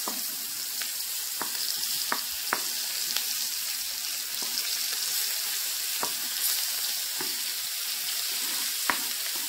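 Sliced red onions sizzling as they drop into hot avocado oil in a frying pan: a steady high hiss. Scattered light taps come as a wooden spatula pushes the onion pieces off a wooden cutting board.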